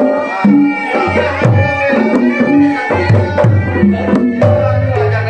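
Sundanese gamelan playing: ringing metallophone tones over kendang hand-drum strokes that bend in pitch, with a long low gong-like tone near the end.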